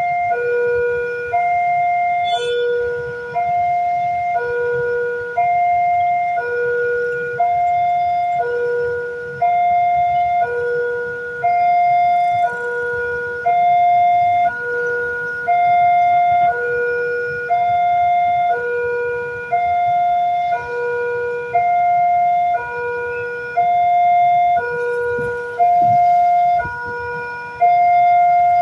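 Electronic level-crossing warning alarm sounding a steady two-tone high-low chime, about one pair every two seconds, which signals that a train is approaching the crossing.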